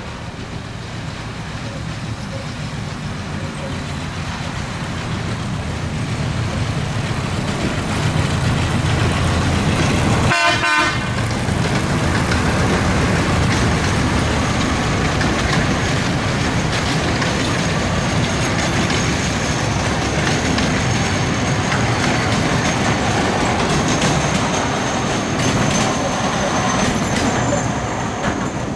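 The D3 diesel locomotive of a miniature park railway approaches with its engine running, growing louder over the first ten seconds. It gives one short horn toot, then its open coaches roll past with wheel and rail noise.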